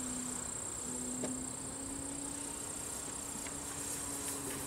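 Electric RC Yak 54 model plane's motor and 12-inch propeller buzzing steadily in flight at a distance, one even droning tone.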